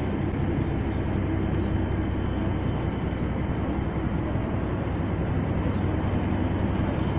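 1270 PS diesel-electric locomotive running steadily as it rolls slowly toward the listener, its diesel engine giving an even, low, unchanging tone.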